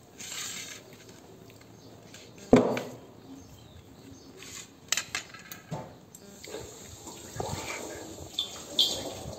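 A young child eating close to the microphone: chewing and mouth noises, with small clicks and taps from handling. One sharp knock about two and a half seconds in is the loudest sound.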